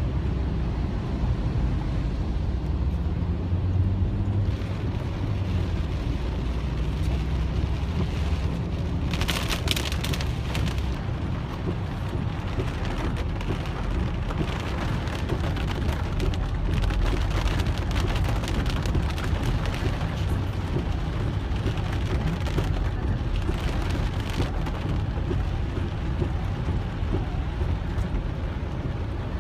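Heavy rain pattering on a car's roof and windscreen, heard from inside the moving car over a steady low rumble of the car on the wet road. A louder burst of spattering comes about nine seconds in and lasts a couple of seconds.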